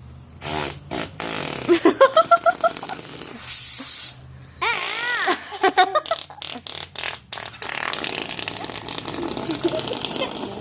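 Fart-like noises made with air from a portable air compressor blown under an armpit, with a short hiss of air midway, among children laughing.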